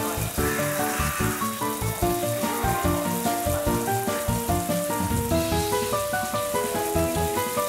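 Background music: a bright melody of short, evenly placed notes over a steady beat.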